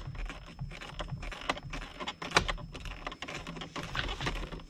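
Irregular small clicks and taps as a hand tool backs the 7 mm screws out of a car's plastic steering column cover.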